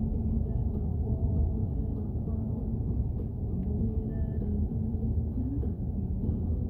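Steady low rumble of a car driving along, road and engine noise heard from inside the cabin.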